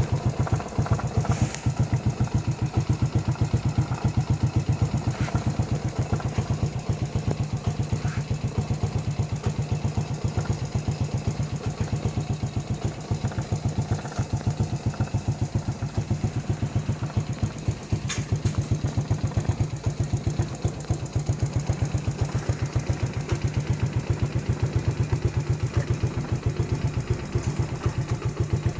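Vehicle engine idling steadily, with an even, unchanging pulse.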